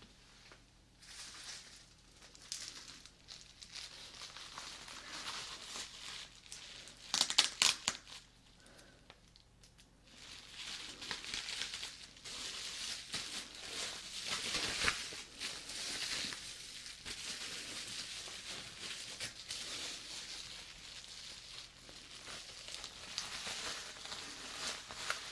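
Plastic bubble wrap being handled and crinkled, a continuous crackling rustle with a cluster of louder, sharp crackles about seven seconds in.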